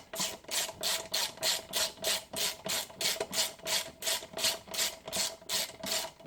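Ratchet wrench being worked quickly back and forth to run in the brake disc bolts until they just touch: an even run of rasping clicks, about five a second.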